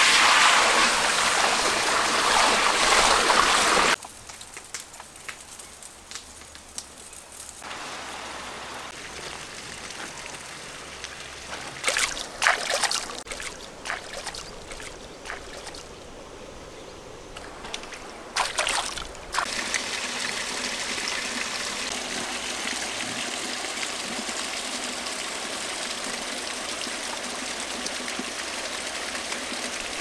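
Water poured from a clay pot into a large metal wok, splashing loudly for about four seconds and stopping abruptly. Quieter water sounds with a few sharp splashes follow, then a steady flowing-water rush from about twenty seconds in.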